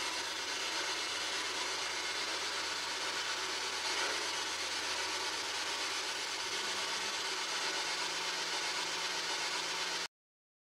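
Radio static from a PSB-7 spirit box sweeping through stations: a steady scratchy hiss with a faint low hum under it, cutting off abruptly about ten seconds in.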